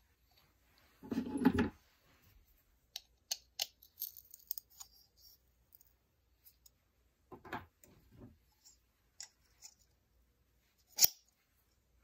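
Handling noises of fitting a metal cut-off wheel onto a mini air die grinder's mandrel with a hex key: scattered light clicks and taps of small metal parts, a dull knock about a second in, a few thuds later, and one sharp click near the end. The grinder is not running.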